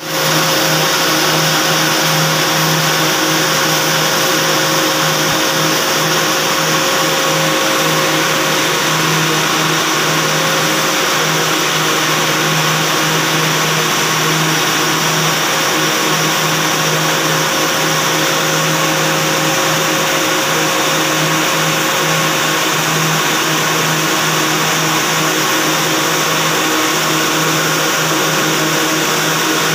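Yarn winding machines running in a textile mill: a loud, steady mechanical drone and hiss, with a constant low hum and a fainter steady tone above it.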